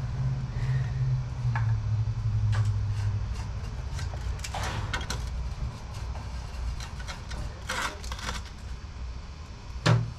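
Black plastic drain pipe and fittings being handled and pushed together in a dirt trench: scattered short knocks, clicks and scrapes, a few louder ones about halfway and near the end, over a steady low hum.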